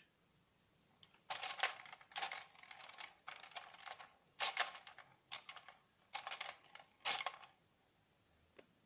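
Plastic clothes pegs of an IKEA PRESSA hanging clothes dryer clicking and clattering as it is handled, in six or seven short bursts of rapid clicks.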